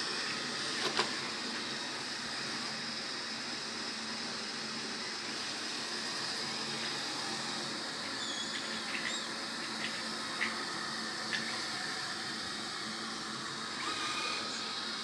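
Robot vacuum cleaner running: a steady whirring hiss from its suction motor, with a couple of light clicks about a second in and a few faint high squeaks later on.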